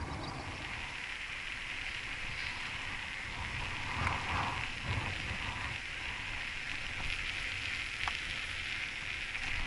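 Bicycle tyres rolling on coarse asphalt, a steady hiss, with wind rumbling on the microphone and a few bumps about four to five seconds in.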